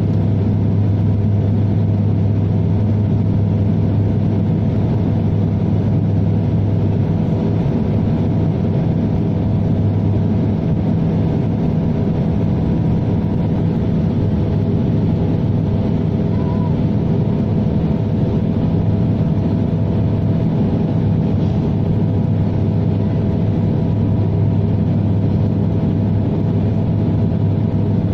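Cabin noise of a De Havilland Dash 8 Q400 turboprop airliner on approach with its landing gear down: a loud, steady propeller and engine drone with a deep hum and several steady higher tones over a hiss.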